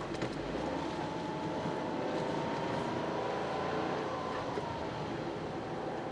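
Toyota GR Yaris's turbocharged three-cylinder engine under way, its note rising slowly from about a second in and easing off again after about four seconds. Steady road noise from studless winter tyres runs underneath.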